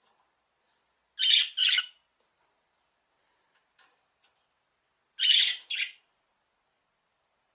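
Budgerigar giving two loud, harsh double squawks about four seconds apart, with a few faint ticks in between.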